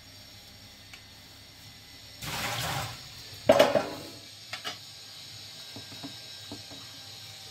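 Spinach being blanched in a pan of water on a gas stove and stirred with a silicone spatula: a brief rush of noise a little after two seconds in, a loud knock about a second later, then a few light taps over a faint steady hiss.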